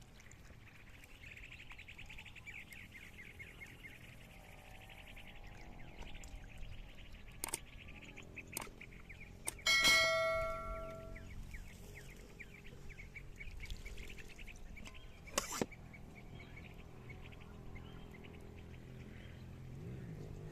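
Birds chirping in the open air, with a few sharp knocks. About ten seconds in comes one loud ringing metallic strike that dies away over about a second and a half.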